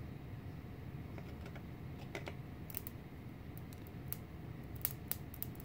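Screwdriver tip shorting the output terminals of a DPS5015 buck converter: irregular sharp clicks and crackles of sparking as it arcs, over a steady low hum.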